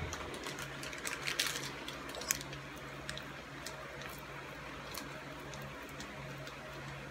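A block of processed cheese being grated on a handheld flat metal grater: soft rasping scrapes with a few light clicks of the grater against the pot. A low steady hum runs underneath.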